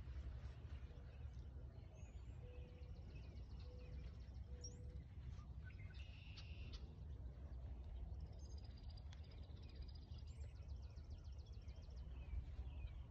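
Wild birds singing in the background, with high rapid trills and chirps and a buzzy call, over a low steady rumble.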